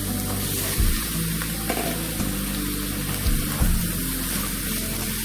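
Ash gourd (kundol) and ground pork sizzling in a frying pan as more gourd pieces are added and pushed around with a wooden spatula, with a few dull knocks.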